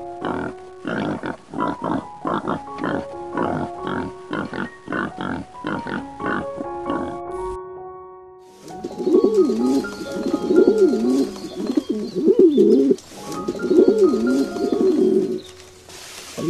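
Domestic pigs grunting in a quick run of short grunts, then after a pause a rock pigeon cooing, four or five wavering rising-and-falling coos. Background music with steady notes plays under both.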